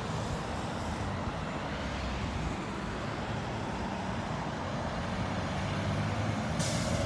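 Bus engine running steadily, with a hiss starting near the end of the stretch and a faint rising tone under it.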